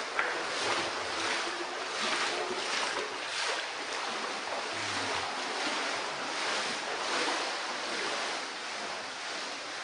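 Floodwater about a foot deep sloshing and splashing as someone wades through it, a steady wash of water noise that surges again and again.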